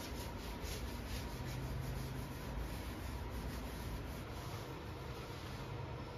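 Cloth rubbing back and forth on a wooden cabinet door, quick wiping strokes repeating a few times a second.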